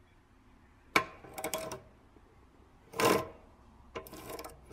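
Metal clicks and knocks from a bench drill press's quill return-spring housing and feed mechanism being worked while the spring tension is set: a sharp click about a second in, a brief clatter, a louder knock about two seconds later, and rattling near the end.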